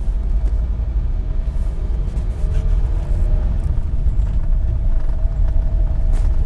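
Car driving along the road: a steady, loud low rumble of road and engine noise with a faint drone held on top.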